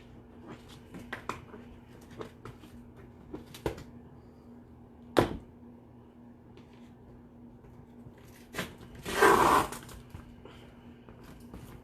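Cardboard box being opened and handled: scattered light taps and clicks, a sharp knock about five seconds in, and a loud rough rustle lasting nearly a second around nine seconds in.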